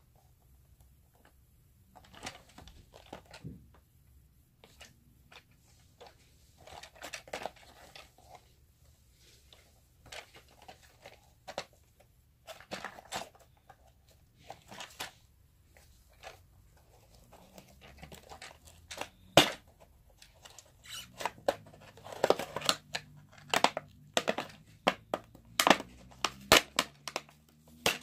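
A cardboard toy box with a clear plastic window being handled and turned over in the hands: scattered rustles, crinkles and light taps, coming thicker in the last several seconds, with one sharp tap about two-thirds of the way in.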